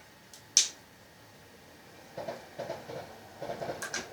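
Parts of an airsoft gas blowback rifle's bolt being handled. There is one sharp click about half a second in, then from about two seconds in a run of light clicks and rattles.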